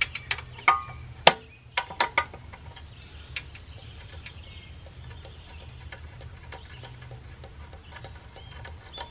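A few sharp metallic clicks and knocks in the first two seconds, from a hand tool working the cover bolts of a Briggs & Stratton small engine, then fainter scattered ticks over a steady low hum.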